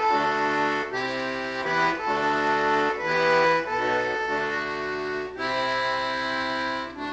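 Button accordion playing a run of held chords, the chord changing about once a second, with the last chord dying away near the end.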